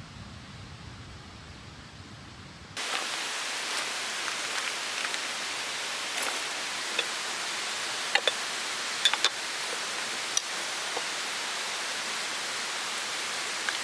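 Steady rushing hiss of a mountain stream's flowing water, with a few short sharp ticks scattered through it. For the first three seconds there is a quieter, duller low rumble, which gives way abruptly to the water.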